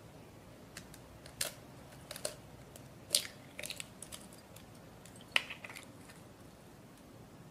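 An egg being cracked and separated over a glass bowl: a few scattered sharp cracks and clicks of eggshell. The loudest come about three seconds in and again about five and a half seconds in.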